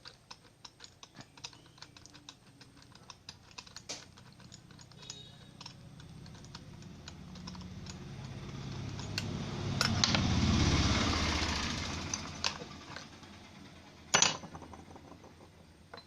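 Small metal parts of an electric hand planer being handled, with many light, quick clicks and taps. A low rumble swells up and dies away in the middle, and one sharp knock comes near the end.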